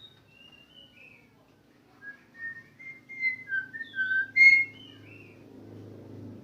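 Javan myna giving a run of short whistled notes that slide up and down: a few faint notes, then a quicker, louder series from about two seconds in, the loudest note about four and a half seconds in.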